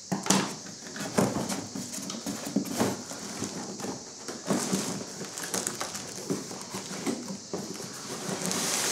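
Large cardboard box being handled against its carton: irregular scraping, rustling and sharp knocks, with a longer sliding hiss near the end as the lid is worked open.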